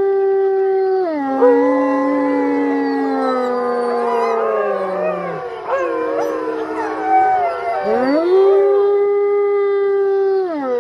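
Wolves howling. One long howl drops in pitch about a second in, several howls then overlap in a chorus, and a single long howl rises, holds, and falls near the end.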